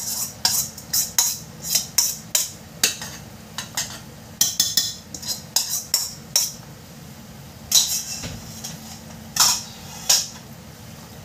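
A wooden spoon stirring chili and garlic in oil in a stainless steel pot, knocking and scraping against the pot's side in quick, irregular strokes. The knocks thin out to a few spaced strikes in the last few seconds.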